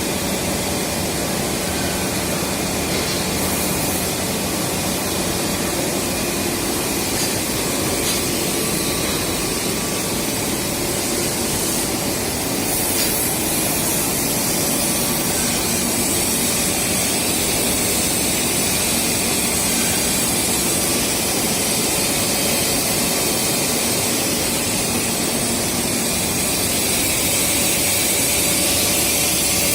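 Cable production machinery running on a factory floor: a steady, even noise with a few faint humming tones, growing a little louder near the end.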